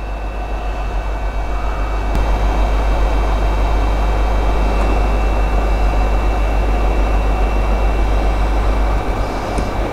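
A hot air rework station blowing a steady jet of air from its nozzle, its fan motor running with a low hum, at medium air speed and 300 °C. It is heating the pads of a surface-mount capacitor until the solder melts and the part lets go. The blowing grows a little louder about two seconds in.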